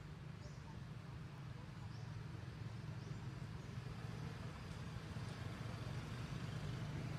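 Low, steady engine rumble of a motor vehicle, growing gradually louder as it draws near. Faint short bird chirps are heard now and then in the first few seconds.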